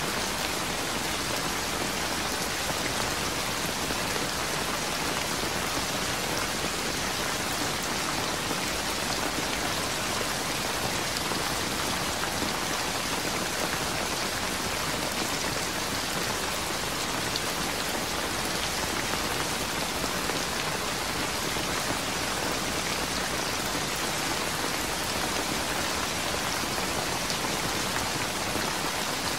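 Steady rain falling, an even unbroken hiss with no thunder.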